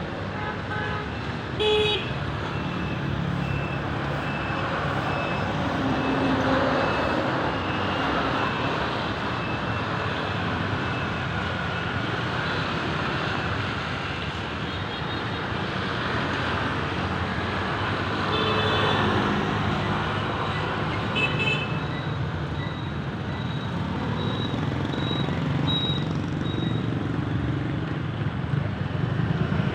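Busy road traffic with vehicles passing steadily, and short vehicle horn toots: one about two seconds in and two more a little past the middle.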